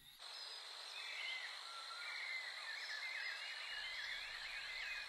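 Tropical forest ambience: a steady high insect drone with many small chirping calls over it, cutting in just after the start.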